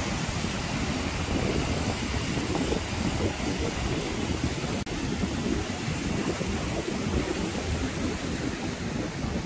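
Wind buffeting the microphone over the surf of waves breaking on a rocky shore: a steady rushing noise with a heavy low rumble, broken by a brief dropout about halfway through.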